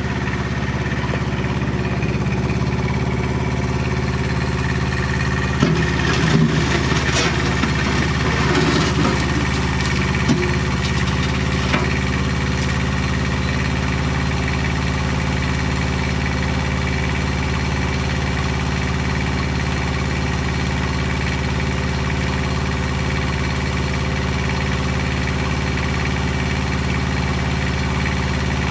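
An engine idling steadily, with a spell of clattering knocks between about six and twelve seconds in.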